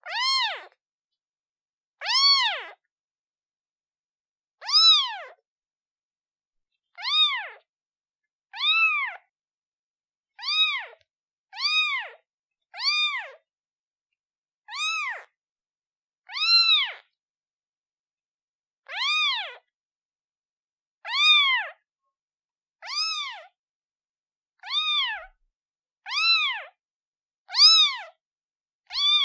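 A newborn kitten meowing repeatedly, calling for its mother: high-pitched calls, each rising and then falling in pitch, about one every one to two seconds, coming a little faster towards the end.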